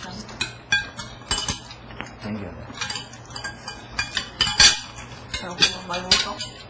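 Cutlery clinking and scraping on a plate as someone eats: a string of irregular sharp clinks, the loudest about four and a half seconds in.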